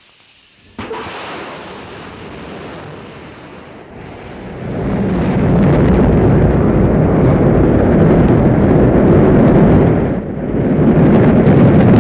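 Rocket launch: the engines ignite with a sudden burst about a second in, followed by a deep rumbling noise that grows much louder about four to five seconds in and holds, dipping briefly near the end.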